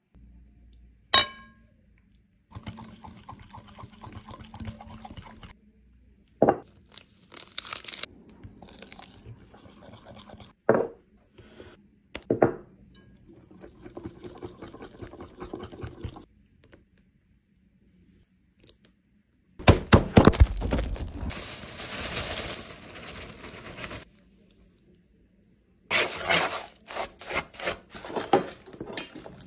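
Kitchen sounds of cheesecake ingredients being poured into a bowl and handled. A few sharp knocks of utensils or containers are scattered through it, a longer, louder pouring stretch comes about two-thirds of the way in, and a quick run of strokes comes near the end.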